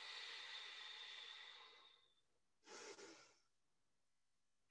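Slow, audible breathing: a long breath out that fades away over about two seconds, then a short breath near three seconds in.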